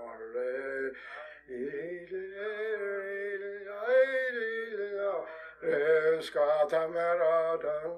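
A single voice singing unaccompanied, in slow phrases of long held, gliding notes, with two short breaths between phrases.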